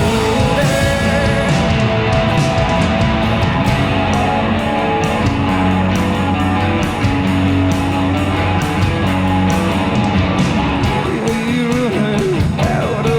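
Rock band playing live: electric guitar, bass and drums with a steady beat, in an instrumental passage without singing.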